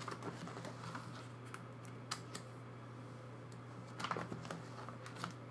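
Soft scattered clicks and rustling from photocards in plastic sleeves being handled in a binder, a little louder about four seconds in, over a low steady hum.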